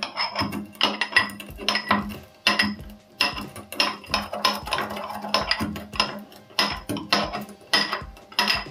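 Black peppercorns and cloves being pounded with a mortar and pestle, about two ringing strikes a second.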